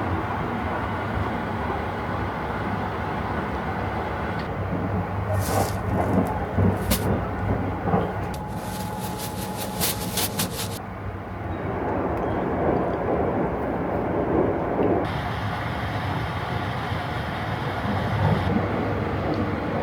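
Sunrise Izumo 285-series sleeper train running, a steady low rumble of wheels on rail. A few sharp clicks come a few seconds in, then a quick run of ticks near the middle.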